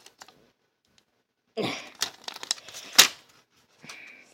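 Plastic floppy disk casing being pried and ripped apart by hand: a stretch of crackling and tearing, then a sharp snap about three seconds in as the shell gives way.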